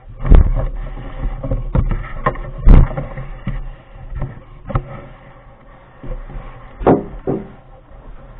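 Camera handling noise: irregular knocks and rubbing on the microphone as the handheld camera is moved around, with loud thumps about a third of a second in, near three seconds and near seven seconds.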